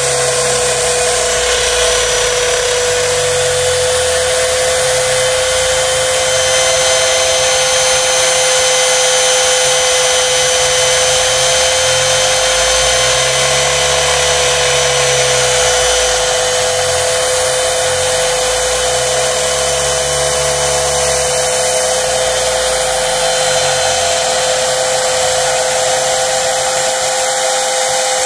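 Spindle motor of a homemade CNC router running at a steady high whine while its bit cuts grooves into plywood. Lower motor tones underneath rise and fall in slow sweeps as the machine moves the bit along curves.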